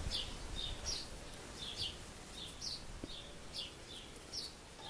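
A bird chirping over and over, short falling chirps about two a second, faint against a low background hum. A single faint click about three seconds in.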